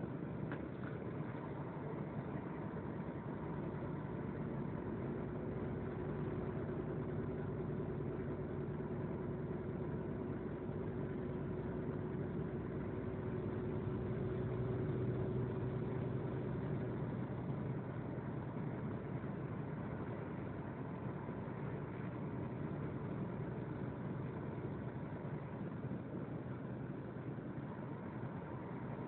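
Steady engine drone and road noise inside a vehicle's cab driving at speed on a snow-covered motorway, with a few steady humming tones; one mid hum fades out about halfway through.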